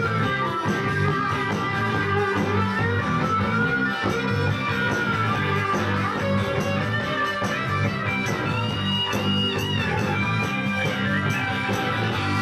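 Live band playing, with electric guitar over bass and drums and a lead line that holds a high, wavering note near the end. Recorded through a video camera's built-in microphone.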